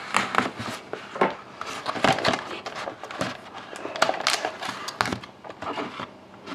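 Hands opening a cardboard box of trading cards: irregular scraping, tapping and crinkling of the box and its packaging.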